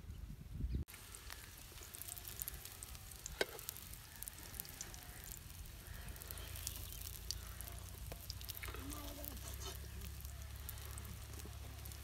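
Egg frying in oil in a nonstick pan: light sizzling and crackling, with a slotted spatula scraping and folding it and one sharp tap about three and a half seconds in. A brief low rumble in the first second.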